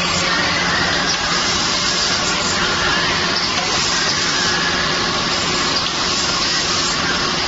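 Automatic syringe filling machine running, a steady, even mechanical noise with a low hum underneath.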